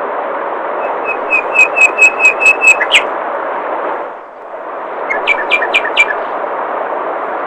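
A songbird calling in a fast series of sharp, evenly repeated whistled notes, about four a second, then a shorter series of four a couple of seconds later, over the steady rush of flowing water, which briefly fades about four seconds in.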